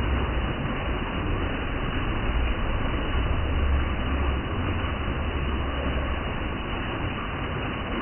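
Waterfall water splashing over rocks into a pool: a steady rushing noise with a low, uneven rumble underneath.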